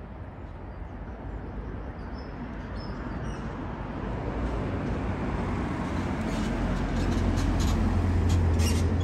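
A car approaching and passing close by. Its engine and tyre noise grows steadily louder, with a deep rumble at its loudest about eight seconds in.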